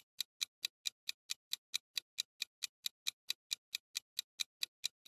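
Quiz countdown timer's ticking sound effect: an even, clock-like tick about four and a half times a second.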